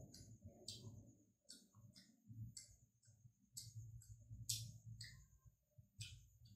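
Faint chewing and wet mouth clicks from a person eating boiled pork and raw greens rolled in rice paper: sharp smacks about once a second at irregular spacing.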